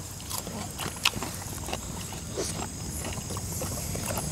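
Close-miked eating sounds: chewing and lip-smacking as people eat spicy smashed fried chicken and rice by hand, a scatter of short wet clicks and smacks, with a puff of breath against the chilli heat.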